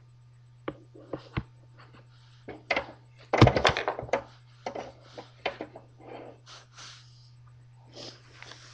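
Small plastic toy pieces clicking and knocking as they are handled and set down, with a louder cluster of knocks about three and a half seconds in, over a faint steady hum.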